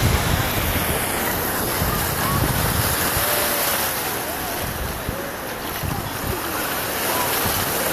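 Small Gulf surf washing ashore, a steady wash of waves, with wind gusting on the microphone.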